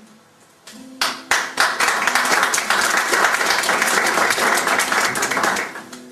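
Small audience applauding after a poem, starting about a second in and dying away near the end.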